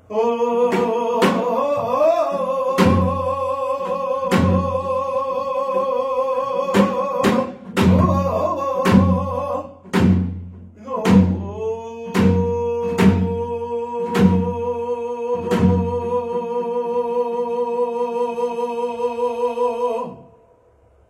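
Pansori-style singing: a voice holding long notes with a heavy, shaking vibrato, accompanied by about a dozen strokes on a barrel drum (buk). Both stop together near the end as the song closes.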